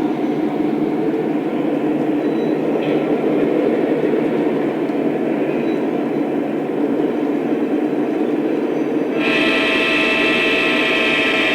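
Lionel O-scale model train running on track with a steady rumble; about nine seconds in, the locomotive's electronic horn sounds one long blast.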